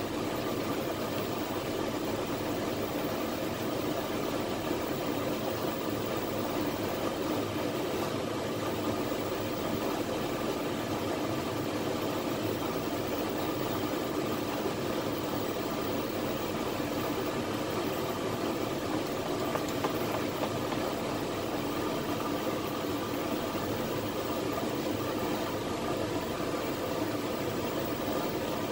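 A steady, unchanging mechanical hum with an even rushing noise.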